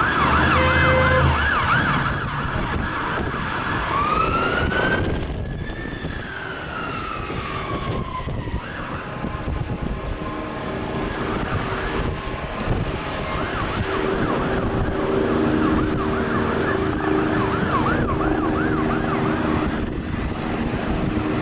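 Fire engine's two-tone electronic siren on a Mercedes-Benz Atego pump. A fast yelp plays together with a short low bullhorn blast at the start. About four seconds in comes one slow wail that rises and falls and then cuts off. Later the yelp returns more faintly, under the noise of street traffic.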